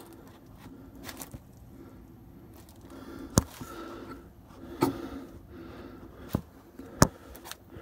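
Tools and gloved hands being handled: a handful of sharp clicks and light scraping over a faint steady background.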